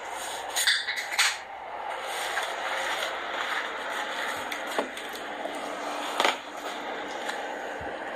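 Dishes being handled on a kitchen table: about four sharp clinks and knocks, the loudest two about a second in and another around six seconds in, over a steady background hiss.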